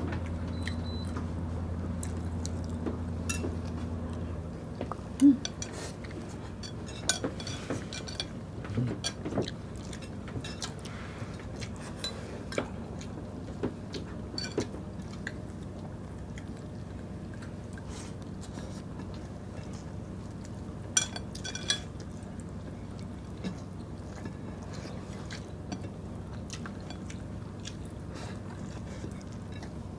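Close-up eating sounds of people chewing rice and canned tuna by hand, with scattered short clicks and clinks of a spoon against a bowl and plates. A low steady hum runs for the first four seconds or so, then stops.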